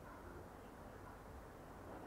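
Near silence with a faint low hum.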